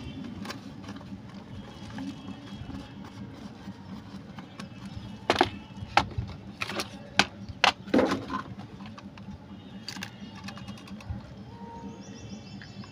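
Cardboard box and plastic toy jeep being handled during unboxing: a quick run of sharp clicks and knocks in the middle as the jeep is lifted out of its packaging.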